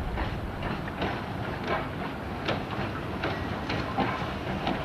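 Isle of Man Railway steam locomotive No. 11 Maitland, a Beyer Peacock 2-4-0 tank engine, moving slowly with its train over the rails. It gives a steady low rumble with irregular clicks and clanks from the wheels and couplings.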